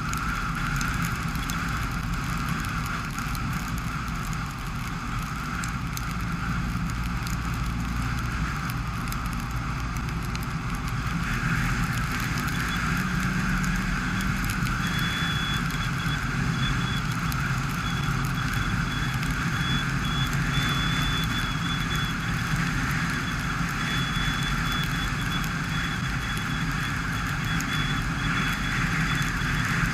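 Dacia Sandero Stepway driving on a wet road: steady engine hum under a hiss of tyres on wet tarmac, which grows louder about eleven seconds in. A thin high tone comes and goes in the second half.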